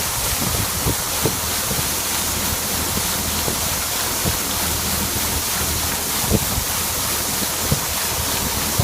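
Combine harvester running steadily while harvesting soybeans: an even rushing noise over a low engine hum, with scattered sharp clicks and ticks.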